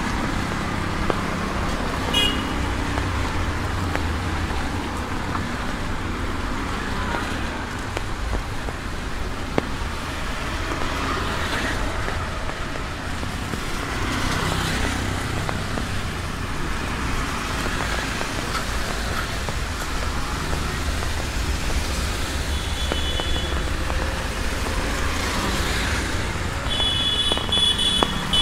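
Traffic on a rain-soaked road in steady rain: auto-rickshaw and car engines running and tyres hissing on the wet asphalt under an even rain hiss. A brief horn toot comes about two seconds in and two more near the end, the last one longer.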